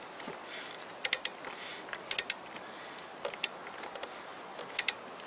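Torque wrench's ratchet head on the crankshaft pulley bolt, giving sharp metallic clicks in four short groups of one to three. The crankshaft pulley turns with the bolt instead of the bolt tightening, because the crankshaft is not locked.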